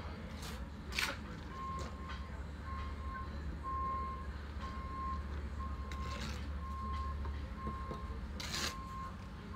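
A site vehicle's reversing alarm beeping about once a second, starting about a second and a half in, over a low engine rumble that eases near the end. A few short scrapes of a bricklayer's trowel on brick and mortar cut in, the loudest about a second in and near the end.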